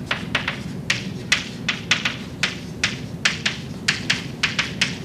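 Chalk writing on a blackboard: an irregular run of sharp taps, about four a second, as each stroke strikes the board.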